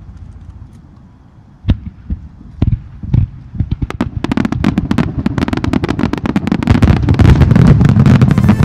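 Fireworks going off: a few single bangs, then from about four seconds in a dense run of rapid bangs that grows louder toward the end.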